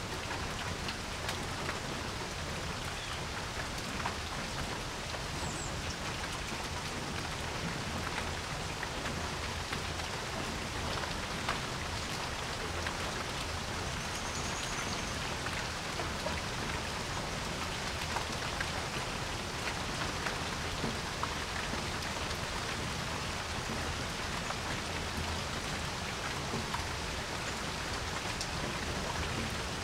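Steady rain falling on a porch, an even hiss with scattered individual drops tapping close by.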